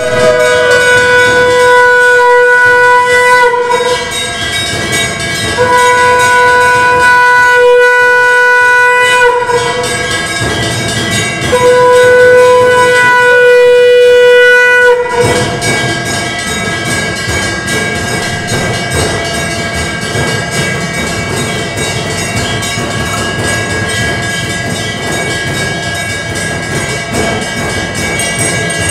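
Conch shell (shankha) blown in three long, steady blasts of about three and a half seconds each, with short pauses between. From about halfway a continuous, rapid ringing takes over, typical of a hand-held puja bell.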